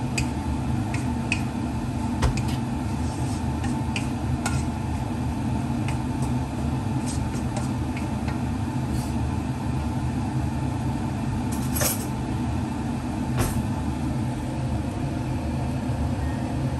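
Wooden spatula stirring a wok of stir-fried seafood, giving scattered light clicks and a couple of short scrapes against the pan over a steady low hum.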